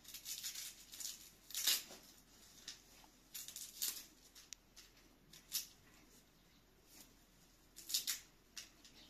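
Fresh herbs being picked over by hand: crisp rustles and snaps of leafy stems in short, irregular bursts, the loudest about two seconds in and near the end.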